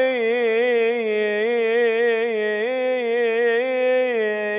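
A man singing an unaccompanied mawwal in praise of the Prophet (madih), drawing out one long melismatic vowel with quick trills and turns. The held note steps up about two and a half seconds in and falls back near the end.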